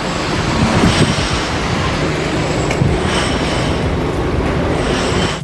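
Street traffic noise: a steady wash of passing vehicles.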